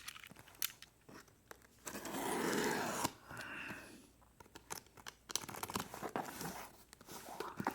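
Packaging being torn open and crinkled by hand, with scattered crackles and clicks and a longer, louder rustle about two seconds in.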